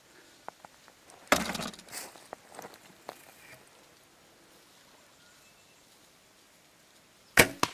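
A Mathews Switchback compound bow shot near the end: a sudden sharp thwack, the loudest sound here. About a second in there is a shorter noisy burst, followed by a few faint clicks.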